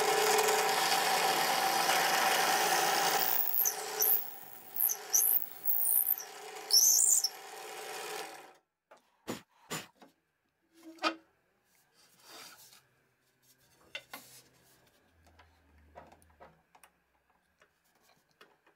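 Drill press motor running while its bit bores into a wooden rod, with high squeals from the cutting bit starting about three and a half seconds in. The motor cuts off abruptly about halfway through, and scattered knocks follow as the rod is handled on the table.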